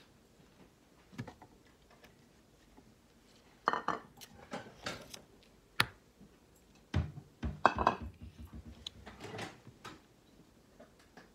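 Scattered clinks, taps and knocks of painting supplies being handled on a hard tabletop, with a sharp click about six seconds in and a quick cluster of knocks a second or two later.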